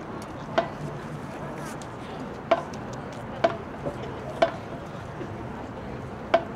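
Sharp knocks, about six at irregular intervals one to two seconds apart, each with a brief ring, over a steady background murmur.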